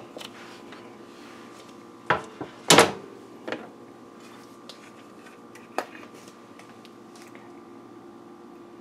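Kitchenware being set down and moved on a glass-top stove and counter: a few sharp knocks and clatters, the loudest about three seconds in, over a faint steady hum.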